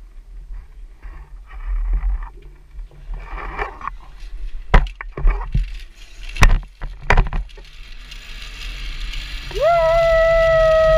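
A few sharp clicks of zip-line trolley and clip hardware, then a rising rush of wind noise. Near the end, the trolley's pulley wheels whine steadily along the steel cable as the rider launches off the platform.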